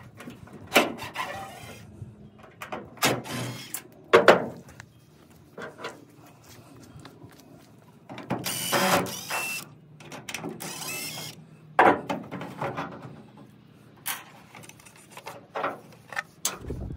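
Clicks, knocks and scraping of hand work on a truck taillight being taken off, with two longer noisy stretches a little past the middle.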